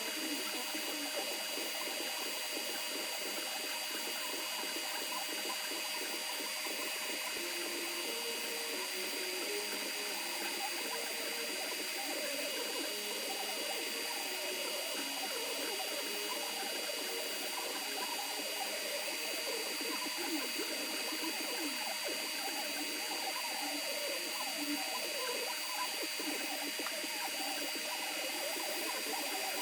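Creality Ender 3 V2 3D printer at work: its stepper motors whine in short tones that keep jumping in pitch as the print head moves, over a steady hum and hiss from its cooling fans.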